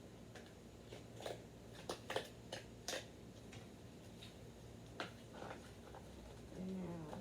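Scattered sharp clicks and crackles of toy packaging being handled and opened, plastic and cardboard, in a quick cluster and then a few more; a brief low hum near the end.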